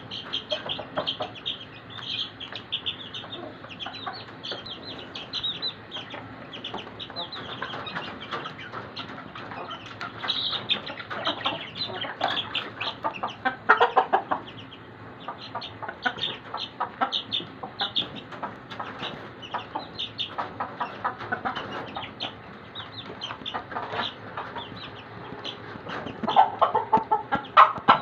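Baby chicks peeping constantly, many short high cheeps in quick succession. Louder, lower calls stand out about halfway through and again near the end.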